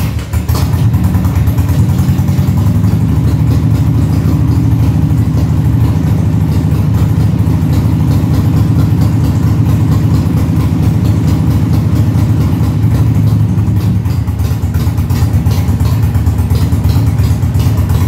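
Harley-Davidson Sportster 1200's air-cooled V-twin engine running steadily at an even speed.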